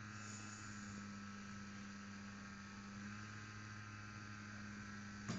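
Faint steady sizzle of tomato paste and spices frying in oil in a pan, over a low steady hum, with a brief click near the end.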